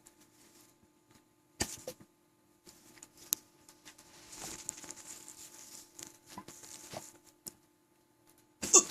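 A person's throat and belly noises close to the microphone, from someone with hiccups who has been gulping water and air: a sudden burst about one and a half seconds in, a soft rushing stretch in the middle, and a louder sudden burst near the end.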